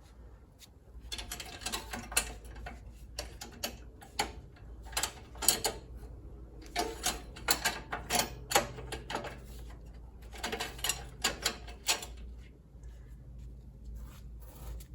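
Hand ratchet wrench clicking in several short runs of rapid clicks as fasteners are turned.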